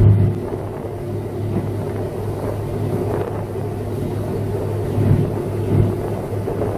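Mercury 80 EFI outboard motor running steadily at cruising speed of about 60 km/h, a constant drone mixed with water rushing past the hull. A few brief thumps stand out over it, about three and five seconds in and near the end.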